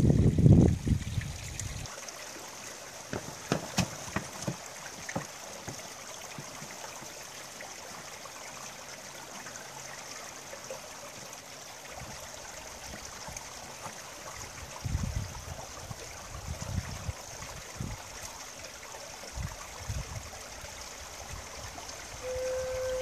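Small stream trickling and splashing down a rocky canyon cascade, a steady rush of water, after a loud low rumble in the first two seconds. Scattered taps and low thumps come and go over the water, and near the end a Native American-style flute starts a held note that then steps up in pitch.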